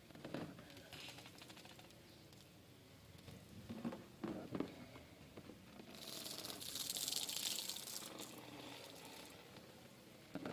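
Plastic vacuum-cleaner parts being handled and knocked during washing, a few clatters near the start and around the middle, then a few seconds of hissing noise.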